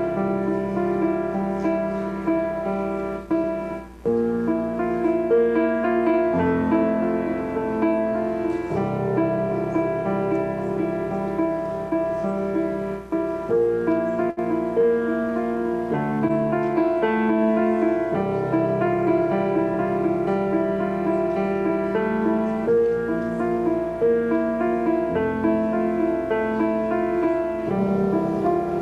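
Instrumental piano music, held notes and chords changing every second or so, with a brief dip in loudness about four seconds in.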